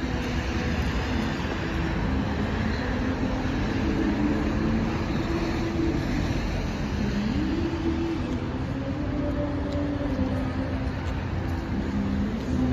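City street ambience: steady traffic noise from vehicles on the avenue, with a humming vehicle tone that rises and falls in pitch around the middle.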